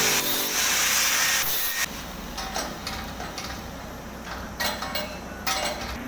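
Handheld angle grinder grinding a steel gate pipe: a loud, hissing, rasping noise that drops off sharply about two seconds in, leaving a quieter sound with two brief louder touches of the disc near the end.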